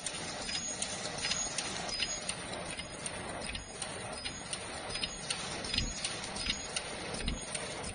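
Automatic disposable mask machine with ultrasonic ear-loop welding, running: a steady mechanical hum with sharp clicks repeating about two or three times a second as the line cycles.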